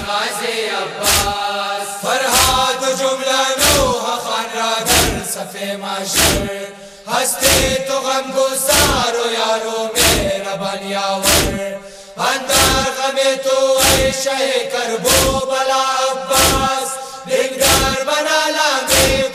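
Male group chanting a noha in unison, kept in time by rhythmic chest-beating (matam): sharp slaps about one and a half a second under the voices, with two brief pauses in the chant.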